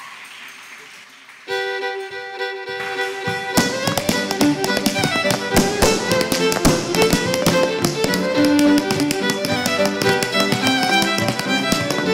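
A fiddle starts about a second and a half in with a few held notes. From about three and a half seconds the full tune with piano accompaniment runs, and a step dancer's hard shoes tap rapidly along with it.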